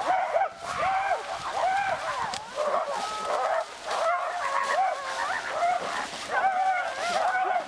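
Several human voices barking and yelping in imitation of dogs: short calls, each rising and falling in pitch, overlapping one another without a break.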